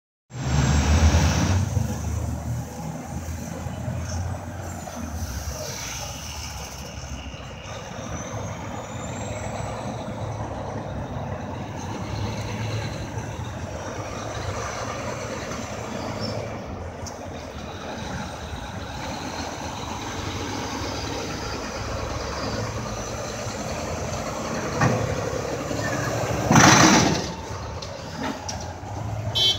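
Diesel semi truck with a heavily loaded flatbed trailer running at low speed through a turn, its engine rumble loudest at the start over steady street traffic. A short, loud hiss of the air brakes comes near the end.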